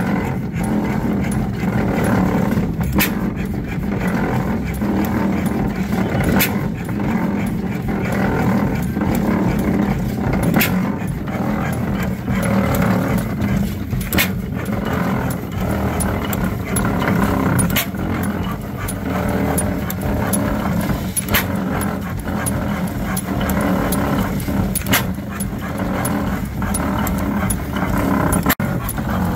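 1911 Fairbanks-Morse Type N 8 HP four-cycle hit-and-miss gas engine running. It gives a sharp report about every three and a half seconds as the hit-and-miss governor lets it fire, over a steady mechanical clatter.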